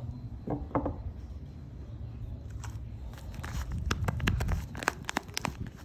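Soap bars being handled in close-up: a run of small sharp crinkles and clicks, thickest from about three and a half to five and a half seconds in, over a low rumble.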